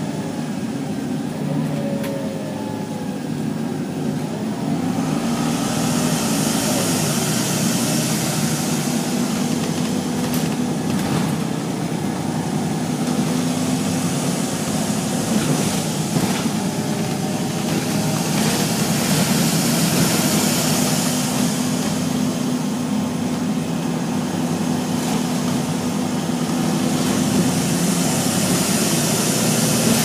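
Volvo single-deck bus running along the road, heard from inside the rear of the saloon: a steady low engine and cooling-fan drone, with a high hissing rush that swells and fades about three times.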